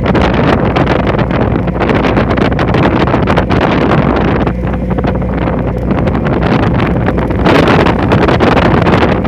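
Strong wind buffeting the microphone over the steady drone of a boat engine, with a stronger gust about three-quarters of the way through.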